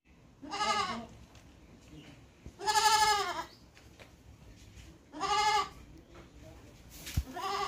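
Goat bleating: three wavering bleats about two and a half seconds apart, and a fourth beginning near the end.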